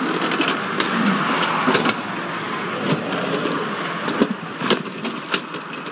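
Sharp metallic clicks and rattles from a padlocked latch on a metal roll-up storage door being worked by hand, over a steady background noise.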